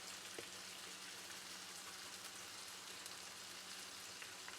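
Green tomatoes and bell pepper sautéing in olive oil: a faint, steady sizzling hiss with a few small pops.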